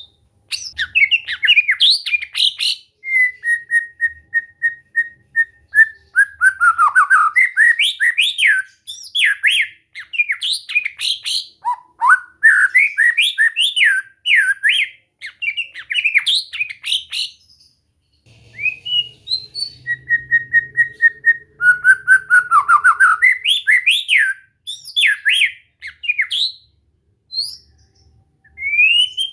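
White-rumped shama (murai batu) singing a long, varied song of whistles, rapid trills and sweeping notes, with a short pause a little past halfway.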